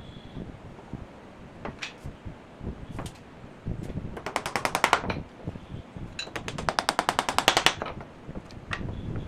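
A woodworking tool clicking rapidly and evenly, about sixteen clicks a second, in two runs, the second longer than the first. Single knocks of wood being handled fall between them.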